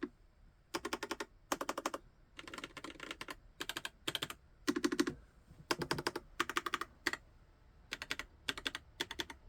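Typing test on a YUNZII QL75 mechanical keyboard with linear switches: quick runs of keystrokes in short bursts with brief pauses between them.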